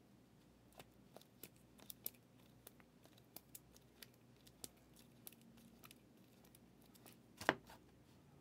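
Faint clicks and slides of stiff chrome trading cards being flipped through by hand, with one louder card snap near the end.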